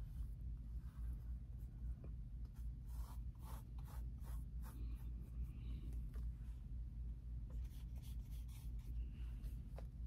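Paintbrush stroking acrylic onto a wooden cutout: faint scratchy brushing in two short runs, about three seconds in and again near the end, over a steady low hum.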